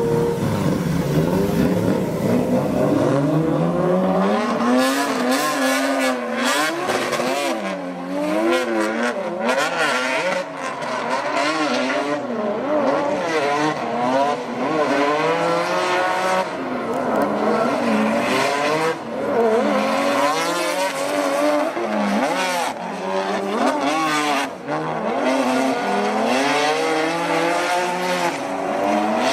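Drift cars' engines revving hard, the revs swinging up and down in quick bursts, with tyre squeal from cars sliding sideways under power.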